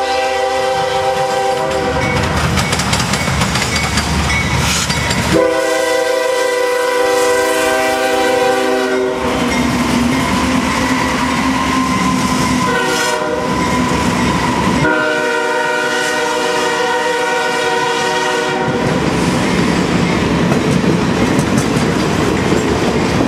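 Diesel locomotive's multi-note air horn sounding the grade-crossing pattern, long, long, short, long, as the train runs through the crossing. Between the blasts the locomotives and cars rumble and clatter over the rail joints.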